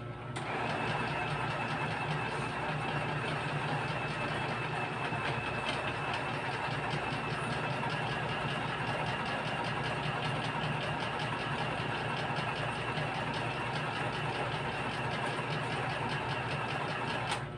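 Small electric motor running steadily with a constant whine, switched on just after the start and cut off shortly before the end.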